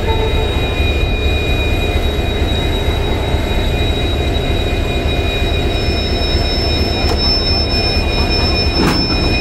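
Railway train moving on the station track: a steady low rumble under high, steady wheel-squeal tones, with a still higher squeal joining about six seconds in.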